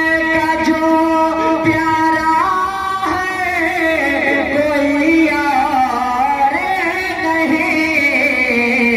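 A naat (devotional praise song) is sung in a long drawn-out melisma. A note is held steadily for the first few seconds, then the voice slides slowly through several pitches without a break.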